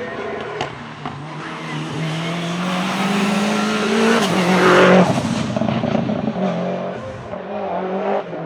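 Subaru Impreza WRX STi's turbocharged flat-four accelerating hard uphill, its note rising in pitch and loudest about halfway through. A rapid fluttering chatter follows as the throttle closes: turbo flutter. The engine then carries on at a steadier, lower note.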